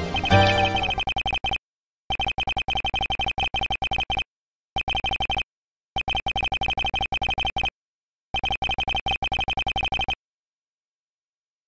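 Visual-novel dialogue text blips: rapid runs of short beeps, all on the same pitch, in about five bursts separated by short pauses as lines of text are typed out on screen.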